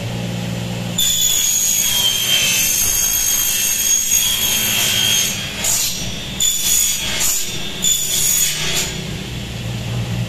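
Power saw cutting aluminium window section: a steady motor hum, then about a second in a loud, high-pitched screech as the blade bites, held for about four seconds, followed by several shorter screeching cuts.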